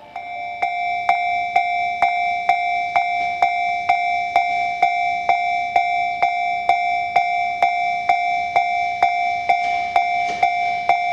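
Japanese railway level-crossing alarm ringing: an electronic bell struck about twice a second over a steady ringing tone, warning that a train is approaching.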